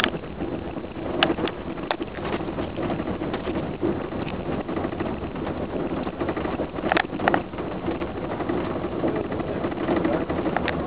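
A moving vehicle heard from inside the cabin: steady engine and road noise, with a few sharp rattles or clicks, two of them close together about seven seconds in.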